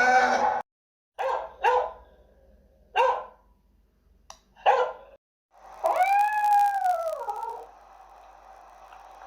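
Dog barking in short single barks, then giving a longer howl that rises and falls about six seconds in.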